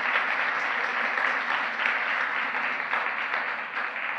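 Congregation applauding, a steady crowd clapping that dies away near the end.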